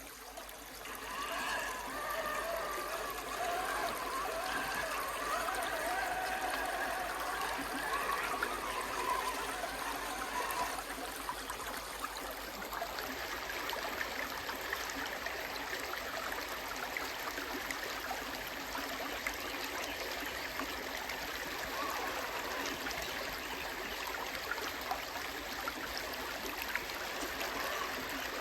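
Creek water flowing steadily, with a wavering pitched whine over roughly the first ten seconds.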